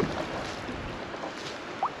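Water splashing and washing around a kayak as it is paddled through choppy sea. Near the end there is a short rising squeak.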